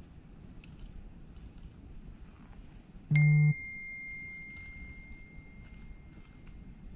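A single bell-like ding about three seconds in: a short low buzz at the strike, then one high, pure tone that rings on for about three seconds, over faint background.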